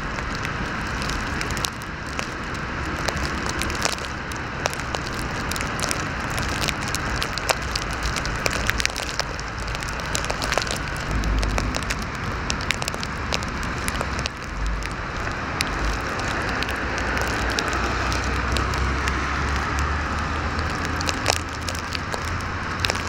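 Outdoor ambience in heavy wet snowfall: a steady hiss full of small crackling ticks, with a low rumble that swells now and then.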